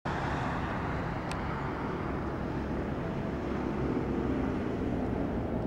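Jet airliner's engines on landing approach: a steady rumbling noise with no rise or fall. A short high chirp sounds about a second in.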